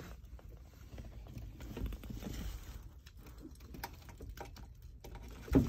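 Irregular light clicks, taps and rustles of hands handling a tester and plastic parts around the truck's cigarette-lighter socket.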